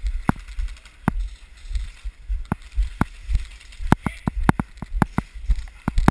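Airsoft guns firing scattered single shots: sharp cracks at uneven intervals, about two or three a second, over low bumping rumble on the microphone.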